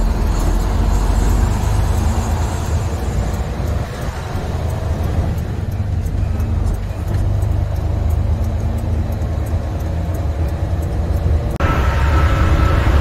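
Diesel semi truck's engine and road noise heard from inside the cab while driving, a steady low rumble. About a second before the end it cuts abruptly to a louder stretch of the same driving noise.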